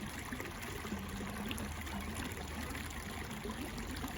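Steady trickle of running water, with a faint low hum underneath.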